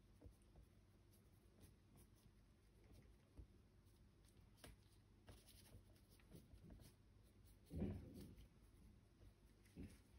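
Faint dabs and scrapes of a paintbrush working oil paint on a palette and canvas, with one louder, dull thump about eight seconds in.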